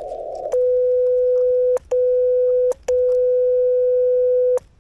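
CW sidetone from a Yaesu FTX-1F transceiver as a straight key is held down for three long steady beeps: about a second, under a second, then nearly two seconds. The receiver's narrow-filtered hiss cuts out while the key is down and comes back just after the last beep.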